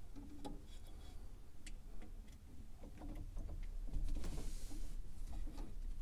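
Scattered small metal clicks and taps as washers and nuts are fitted by hand onto the ammeter's terminal posts, with a brief rustle about four seconds in.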